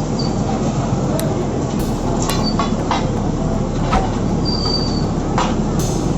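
A steady, low rumbling noise runs throughout, with a few sharp metallic clinks of utensils on metal, the clearest at about two, three and five and a half seconds in.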